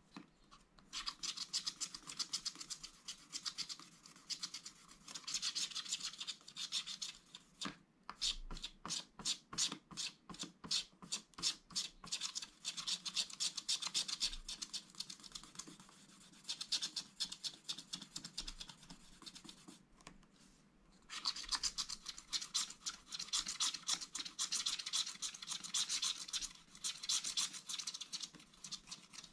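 Wooden stylus scratching the black coating off a scratch-art card in quick, dry strokes. About a third of the way in comes a run of rapid, even back-and-forth strokes, about five a second. The scratching goes softer for a few seconds past the middle, then picks up densely again.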